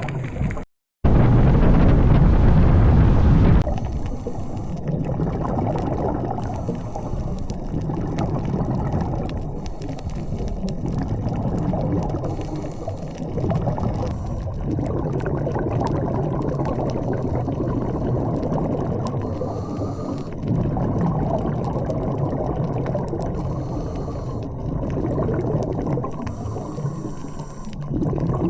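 Muffled underwater rush of water picked up by an action camera, with faint scattered clicks. A louder, fuller rush of water in the first few seconds drops back to the steady muffled sound.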